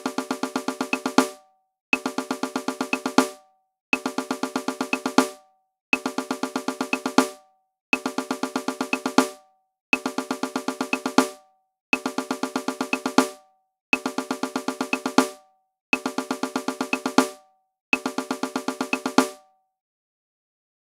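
Snare drum playing the eleven stroke roll rudiment: a run of ten evenly spaced strokes (five doubles) closed by a louder accented stroke, repeated every two seconds. Ten rolls in all, stopping about 19 seconds in.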